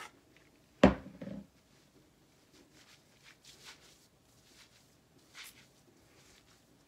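A sharp knock about a second in, followed by two smaller thuds, then faint soft rustling and squishing as hands scrunch mousse through wet curly hair.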